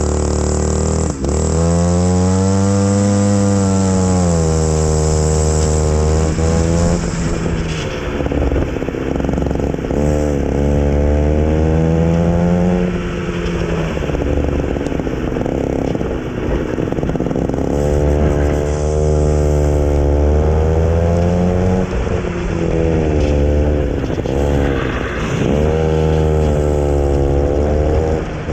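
Junior go-kart's small single-cylinder engine pulling away and then revving up and down through an autocross course. The pitch climbs and falls over and over, with brief lifts off the throttle.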